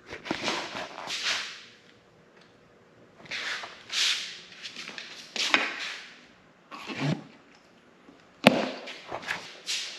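Rustling and scraping handling noise from a GoPro being fitted and adjusted, in irregular bursts of about a second each, with one sharp click near the end.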